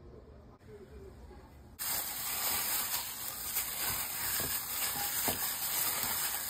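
A loud, steady hiss that starts abruptly about two seconds in and holds even throughout.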